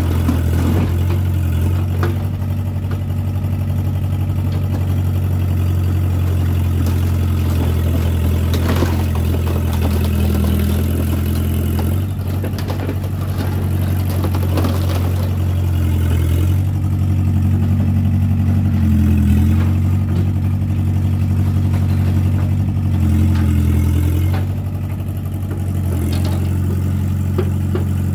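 Compact excavator's diesel engine running steadily, swelling now and then under hydraulic load as the arm and bucket work. A few knocks and clatter of the bucket digging through debris.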